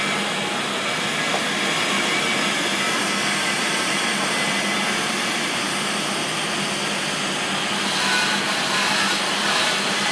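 TIG welding arc hissing steadily with a faint hum as the root pass on a P11 chrome-moly alloy-steel pipe is closed.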